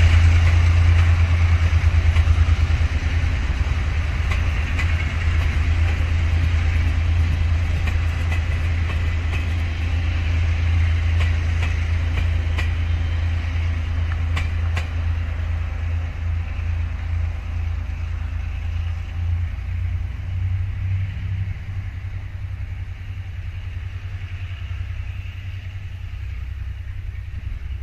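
Taiwan Railways Chu-Kuang passenger train rolling slowly past: a steady low hum and wheel-on-rail rumble, with a few clicks of wheels over rail joints partway through, fading as the train pulls away.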